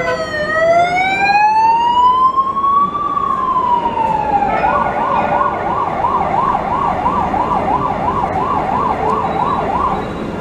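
Emergency vehicle siren: a slow wail that rises and falls once, then switches about four and a half seconds in to a fast warble of about three cycles a second, which stops near the end.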